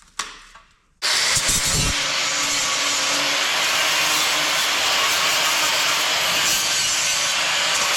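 Steady, harsh hiss of metalworking on a motorcycle gas tank, starting abruptly about a second in.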